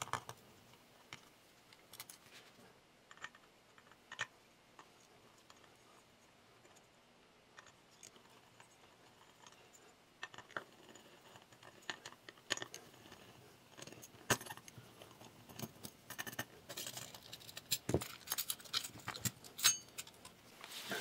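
Small metal clicks and clinks of a hard drive being taken apart by hand: a Torx screwdriver working the tiny screws of the platter clamp, and the drive's metal case and parts rattling as it is handled. The clicks are scattered at first and stop for a few seconds, then turn into busier clinking over the last several seconds.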